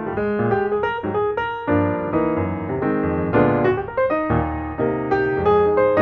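Background piano music: a quick, continuous string of notes and chords.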